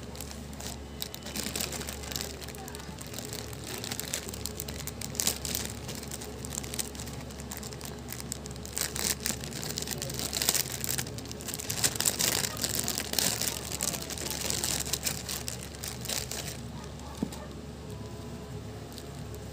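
Clear plastic packaging crinkling in irregular bursts as cloth face masks are handled and pulled from their bags; the crinkling dies down near the end.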